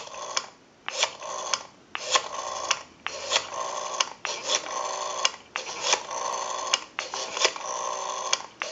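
Rotary dial of a Western Electric Spacesaver telephone being dialed digit after digit: each wind-up and release is followed by the dial's whirring return with its rapid pulse clicks. The returns get longer as higher digits are dialed in turn.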